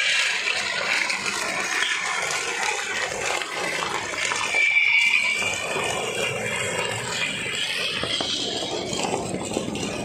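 Glass liquor bottles crackling and crunching as a road roller's steel roll crushes them, a dense run of small breaks and grinding. A brief high squeal sounds about halfway through.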